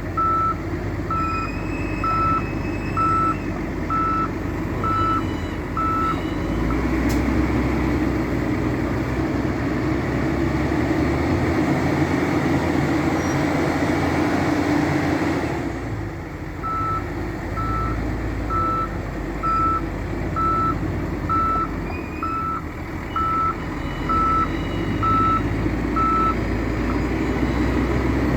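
Wheel loader's diesel engine running, its reversing alarm beeping about once a second. The beeping stops about six seconds in while the engine runs louder for around ten seconds, then the engine drops back and the beeping resumes.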